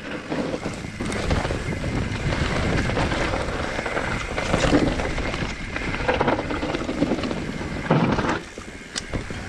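YT Capra full-suspension mountain bike descending a dirt forest trail: knobby tyres rolling and skidding over dry dirt and roots, the bike rattling over bumps, with wind rushing on the microphone. The noise eases off near the end.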